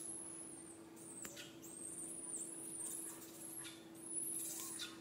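Faint, very high chirps and whistles from small birds, several short calls that rise and fall, over a low steady hum.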